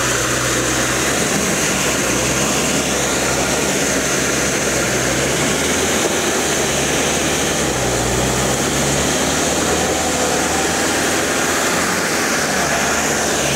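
Pickup truck's engine running steadily as the truck creeps forward through mud, over a continuous hiss.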